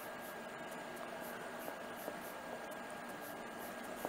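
Wooden spoon stirring flour into a wet yeast dough mix in a glass bowl: faint soft scraping with an occasional light tap, over a steady hiss.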